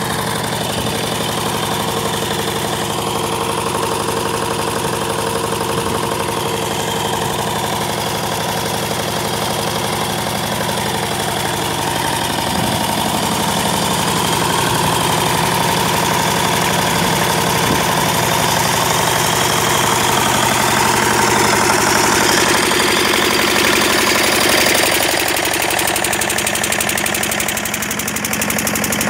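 Generator engine running steadily, with a knocking beat, while it powers a borewell pump; water gushes and splashes from the outlet pipe into the pit.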